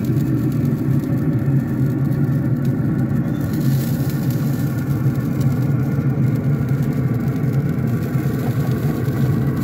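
Wood pellet grill running with a steady low mechanical hum and rumble from its fan, a hiss joining about three and a half seconds in.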